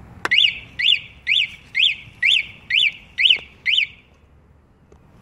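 A sharp tap on the motorcycle, then its alarm sounds the pre-alarm warning: eight electronic chirps, each a quick rise and fall in pitch, about two a second, stopping by itself after about four seconds. This is the alarm's warning stage for a light touch, not the full siren.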